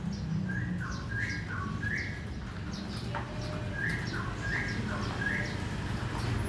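Lovebirds chirping: short sharp high chirps about twice a second, mixed with repeated lower two-note calls, over a steady low background rumble.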